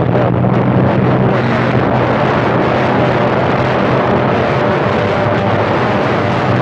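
CB radio receiver hissing with loud band static between transmissions, over a steady low hum, with faint warbling traces of distant signals in the noise.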